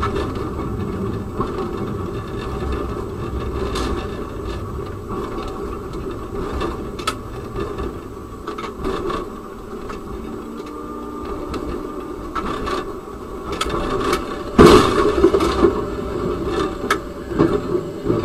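Tram running, heard inside the driver's cab: a steady rumble with scattered clicks. About fourteen and a half seconds in comes a sudden loud bang as the tram hits a car turning across its path, and the noise stays louder and uneven for a few seconds after.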